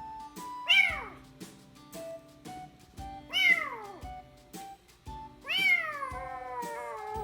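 A young kitten, about three to four weeks old, meowing loudly three times; each call rises then falls, and the last is long and drawn out. Background music plays under the calls.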